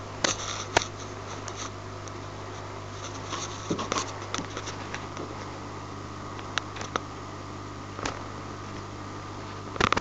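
Steady low electrical hum of running aquarium equipment, with scattered light clicks and rustles, loudest just after the start and near the end.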